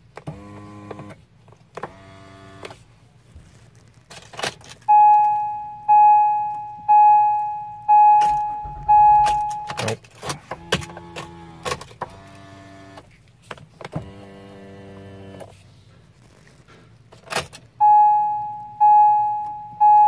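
Acura MDX power telescoping steering column motor whirring in several short runs of about a second each as the wheel is driven in and out, with sharp clicks from the ignition key. A dashboard warning chime dings about once a second in two stretches, one in the middle and one near the end.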